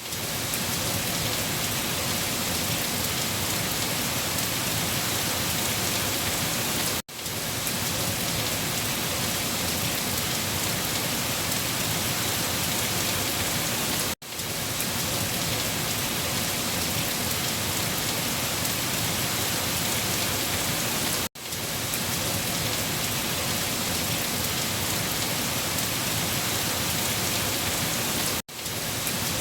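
Heavy rain falling on leaves, a steady dense hiss of drops, cutting out for an instant about every seven seconds.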